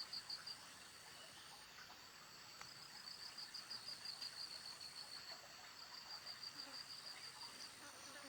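Insects trilling: a high, evenly pulsed trill that comes in runs of a couple of seconds, over a faint constant high-pitched whine.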